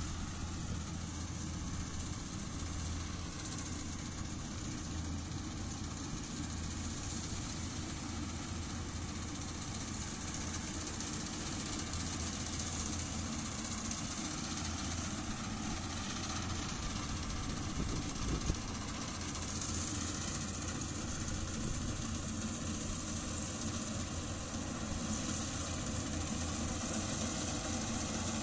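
Yanmar AW70GV combine harvester's diesel engine running steadily while harvesting rice, with a continuous hiss over the engine hum. It grows slightly louder in the second half as the machine comes closer, and there is one brief sharp knock about two-thirds of the way through.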